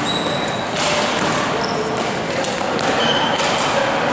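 Badminton rally in a large hall: several sharp racket hits on the shuttlecock and a few brief high squeaks of shoes on the court floor, over a steady echoing hall din.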